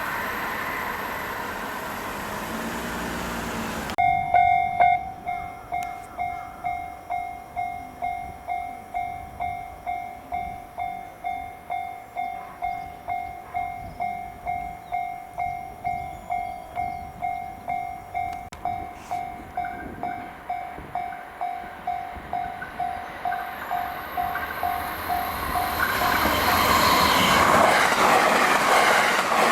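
Train running noise for the first few seconds, cutting off abruptly. Then a Japanese level crossing warning bell rings in an even, repeating ding, a little under two strikes a second. Near the end a JR Hanwa Line train approaches and passes through the crossing at speed, its noise swelling over the bell.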